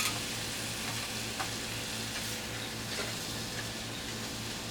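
Offal (hormone) sizzling on a flat iron griddle: a steady frying hiss with a few faint clicks.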